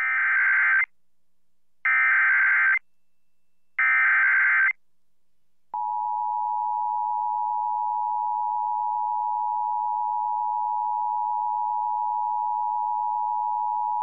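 Emergency Alert System tones: three short bursts of the SAME data header, each just under a second long and about two seconds apart. Then the two-tone EAS attention signal sounds steadily for about eight and a half seconds and cuts off. It announces an emergency alert, here an immediate evacuation order.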